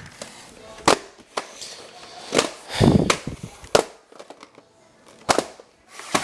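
Sharp plastic clicks and rattles, about eight spread unevenly, as a VHS tape and its case are handled and opened, with a louder scuffing handling noise about three seconds in.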